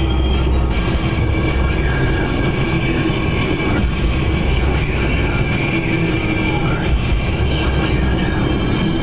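Steady road and engine noise inside a moving car's cabin: a constant low rumble with a droning tone.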